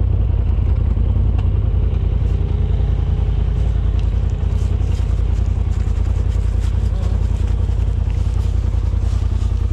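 Polaris RZR Pro XP side-by-side's engine running steadily with a deep drone while under way, with scattered clattering ticks over it.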